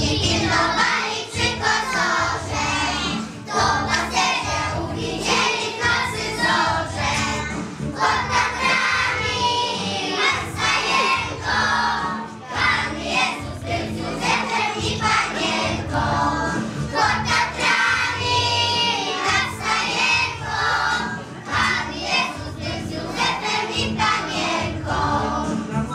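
A group of young children singing a song together in unison, over instrumental accompaniment with steady low notes.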